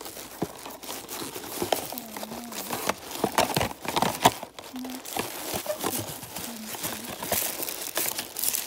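Tissue paper and paper packaging being handled and crumpled: continuous, irregular crinkling and rustling with many sharp crackles.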